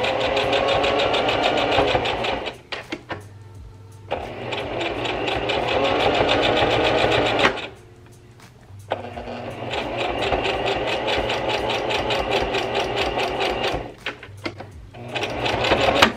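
Electric sewing machine stitching through knit fabric in four runs of a few seconds each, with short pauses between, the needle going up and down rapidly.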